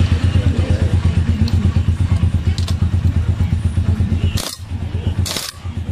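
A low, rapidly pulsing machine throb runs, then stops about four and a half seconds in. It gives way to short bursts of a pneumatic impact wrench rattling on the nut at the centre of a motorcycle clutch, as the nut is worked loose or run down.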